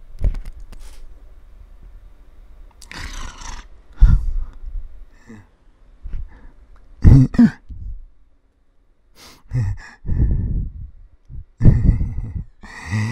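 A person's breaths, sighs and mouth noises close to a phone microphone, in short irregular bursts with quiet gaps between, some with a thump.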